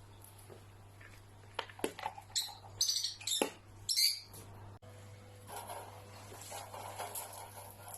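A pet parrot giving a quick series of short, high chirping calls, about four of them close together.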